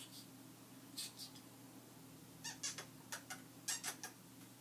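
A pet parrot making short, high-pitched squeaks and clicks: a pair about a second in, then a rapid string of about nine in the second half.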